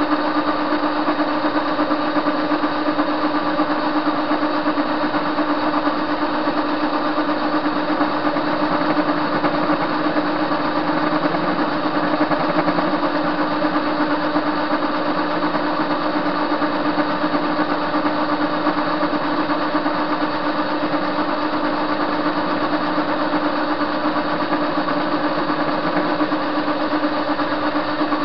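Soviet TV-16 lathe running steadily while turning a metal bar: an even machine hum with a steady tone from the motor and gearing.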